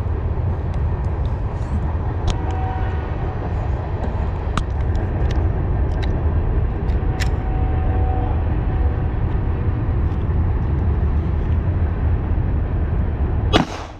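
Side-by-side utility vehicle running along, a steady low rumble with scattered rattles and clicks. A sudden sharp crack comes just before the end.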